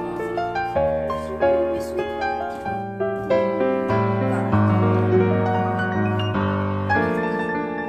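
Background piano music: a gentle melody of struck notes that ring and fade, with low bass notes held underneath.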